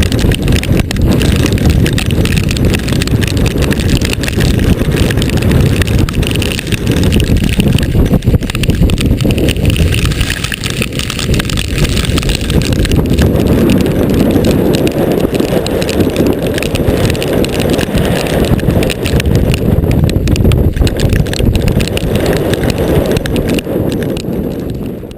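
Strong gusty wind buffeting the microphone: a loud, continuous low rumble that swells and eases with the gusts.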